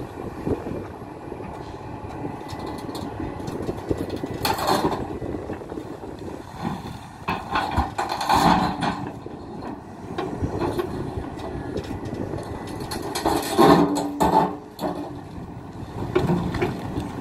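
Hidromek 390LC excavator running under load while digging hard, stony ground, with loud bursts of scraping and clattering of rock against the steel bucket about four, eight and fourteen seconds in.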